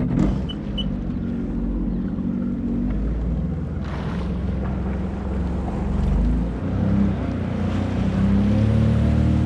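Sea-Doo GTI 90 jet ski's engine starting to run under way, with a steady drone, water rushing and wind over the microphone. Two short high beeps sound just after it starts, and the engine picks up a little near the end.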